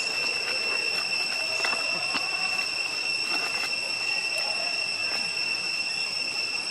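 A steady, high-pitched two-tone whine, with a few faint short clicks and rustles over it.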